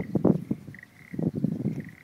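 Frogs croaking in quick rattling bursts, one right at the start and another just past halfway, with a faint high note piping now and then.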